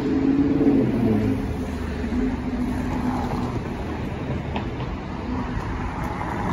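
Cars driving past on a town street: steady traffic noise, with an engine note that rises and falls in the first couple of seconds.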